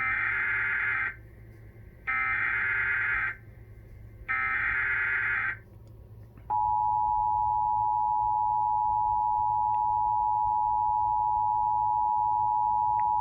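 Emergency Alert System SAME header: three harsh bursts of warbling digital data tones, about two seconds apart. About six and a half seconds in, the steady two-tone EAS attention signal starts and keeps sounding. Together they announce a severe thunderstorm warning.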